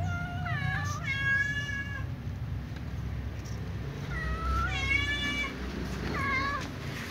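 A domestic cat meowing repeatedly: about six high meows in short runs, with one longer drawn-out meow about a second in and a gap in the middle.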